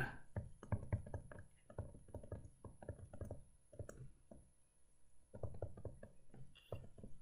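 Faint, irregular clicks and taps of a stylus on a tablet as words are handwritten, with a short pause a little after four seconds in.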